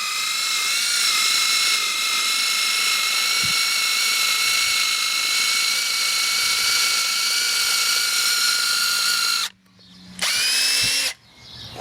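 Cordless drill spinning a broken screwdriver bit into live tree wood, running at a steady whine for about nine and a half seconds, then stopping. A short second burst spins up and stops about a second later. The bit is boring by friction and is hot enough to make the wood smoke.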